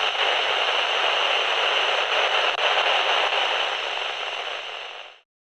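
Loud static hiss like an untuned television or radio, with a faint steady hum beneath it; it fades slightly and then cuts off suddenly about five seconds in.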